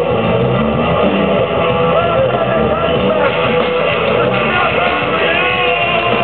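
Live punk rock band playing loud: electric guitar, bass and drums, with a singer at the microphone.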